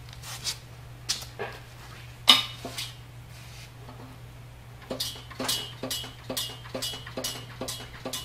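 Old monkey wrench clinking against cast iron as it is picked up and set onto a nut on a century-old Chandler & Price platen press, with one sharp clank a little over two seconds in. From about five seconds in, a run of light metallic clicks, about three a second, as the wrench works the nut.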